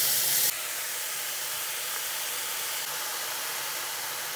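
Sliced beef sizzling in a hot non-stick wok, a steady hiss. A louder, brighter sizzle cuts off suddenly about half a second in.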